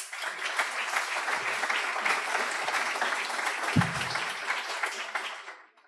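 Audience applauding, then fading out near the end.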